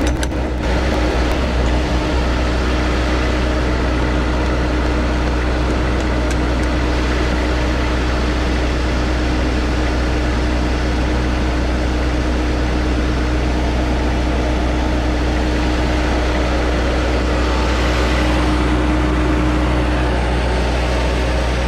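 Bobcat S185 skid steer's diesel engine idling steadily, a constant low drone.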